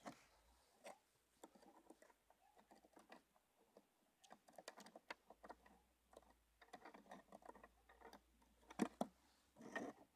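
Faint clicking and scraping of fingers on the wooden frames of an opened beehive, with a louder cluster of scrapes near the end.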